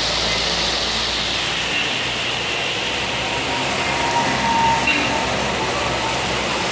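Heavy rain falling, mixed with the hiss of minibuses' and cars' tyres on the soaked road as they pass close by; a steady, unbroken wash of noise.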